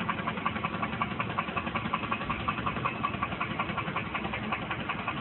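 Hyundai Azera's 3.3-litre V6 running with a loud, fast, even knocking: the sound of an engine failing inside, one that went on to lock up.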